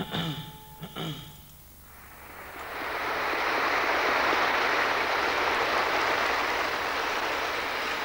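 Theatre audience applauding, swelling up about two seconds in and then holding steady.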